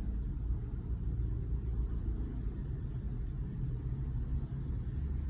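Steady low background rumble, with no distinct sounds standing out over it.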